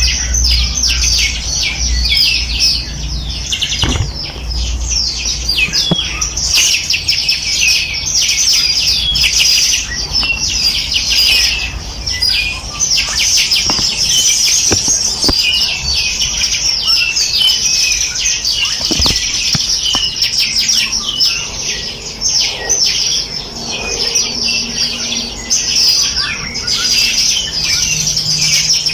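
A flock of small songbirds chirping continuously: many short, high chirps overlapping into a dense chorus with no pause.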